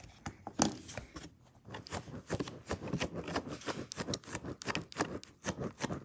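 Irregular clicks, taps and rustles of small objects being handled close to the microphone, several a second.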